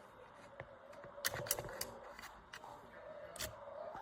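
A few sharp clicks and knocks, as of small objects being handled, clustered about a second and a half in with another near the end, over a faint steady hum.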